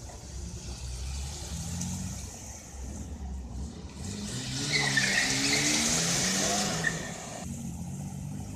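Classic cars pulling away one after another over cobblestones, engines rising in pitch as they accelerate. The loudest stretch comes about halfway through, as one passes close with a hiss of tyres on the stones.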